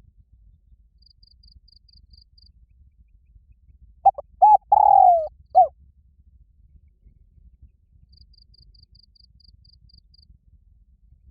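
Spotted dove giving one coo phrase about four seconds in: two short notes, a longer falling note, then a final short note. Faint insect chirps in quick high runs before and after it.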